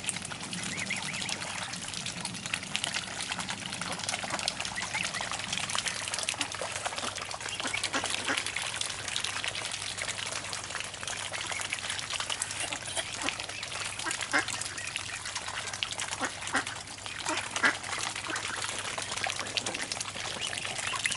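Mute swans and their cygnets dabbling at grain in and around a floating food ring: a steady, busy wet clicking and slurping of many bills working the water surface, with a few louder single clicks.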